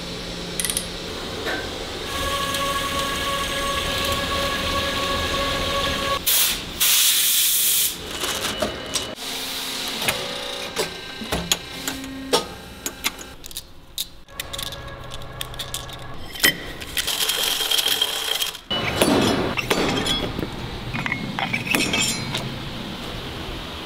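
Metalworking factory sounds over several cuts: a machine running with a steady whine for a few seconds, a loud hiss for about a second, then repeated clinks and knocks of wrenches and steel parts being handled.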